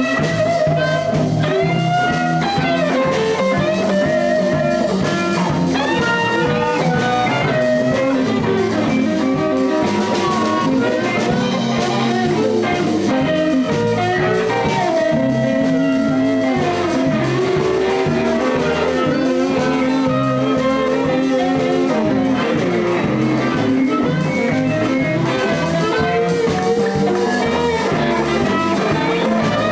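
Live blues band playing an instrumental passage: electric guitar over bass and drums, with a bending lead melody line.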